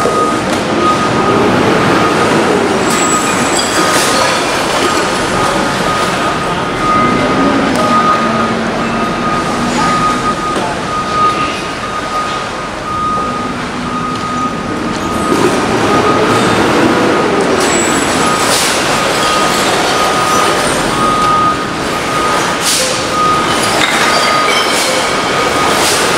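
Heavy diesel equipment running, with a back-up alarm beeping steadily. The engine revs rise and fall twice, with a few metal clanks.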